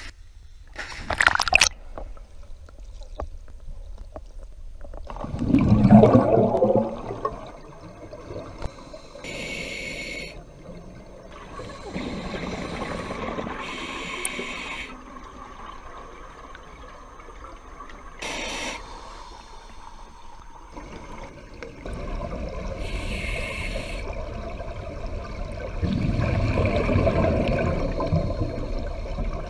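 Underwater sound of scuba diving: regulator breathing and bubbling of exhaled air, the hiss coming back about every four to five seconds, with a louder rush of bubbles about six seconds in.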